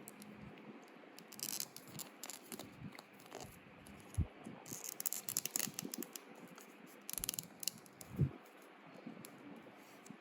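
Packaging being handled: short crinkly rustles of plastic or paper, mixed with small clicks and a few light knocks.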